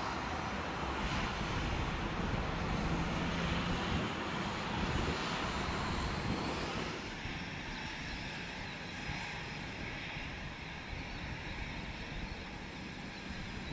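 Boeing 737 twin CFM56 jet engines running at low taxi thrust, a steady jet whine and rush. It is a little louder in the first half, then eases off about halfway through as the airliner rolls onto the runway.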